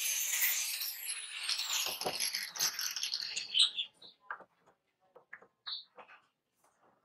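Angle grinder spinning down after grinding steel, its whine falling steadily in pitch over the first two seconds. This is followed by scattered metallic clicks and taps as pliers grip a small steel piece clamped in a bench vise.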